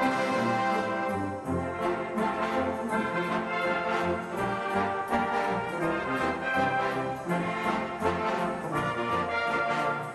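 Background music: a brass band playing, with trombones and trumpets carrying several notes at once.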